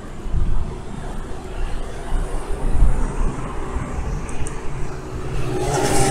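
Wind buffeting the microphone and road rumble while riding a bicycle. Near the end a motor vehicle comes up close, and its engine and tyre noise grow louder.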